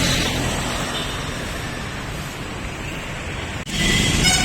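Heavy city road traffic: a steady rumble of engines and tyres from passing vehicles. Near the end the sound breaks off for an instant and a vehicle horn begins to sound.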